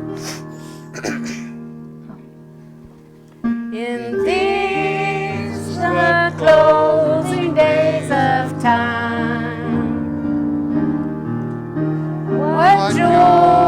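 Church worship music on a keyboard. A held chord dies away, then about three and a half seconds in the keyboard starts again with sustained chords and a melody line over them.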